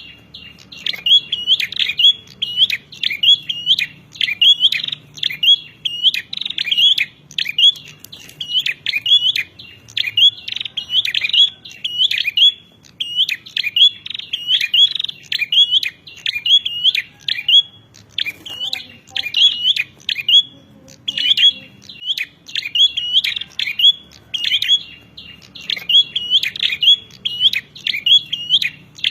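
Prenjak (prinia) giving its combative 'narung' call: a fast, unbroken string of sharp repeated chirps, several a second, with a couple of short breaks past the middle.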